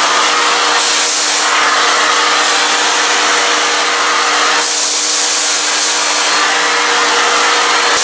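Eureka Forbes Xforce vacuum cleaner running: a loud, steady rush of air with a constant motor whine. The rush brightens briefly about a second in and again near five seconds.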